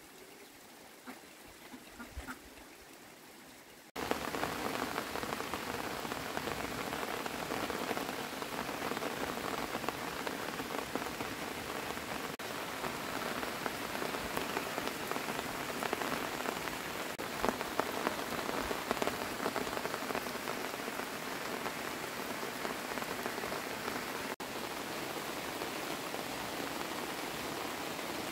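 Steady rain, coming in abruptly about four seconds in after a few seconds of quieter outdoor ambience with faint clicks.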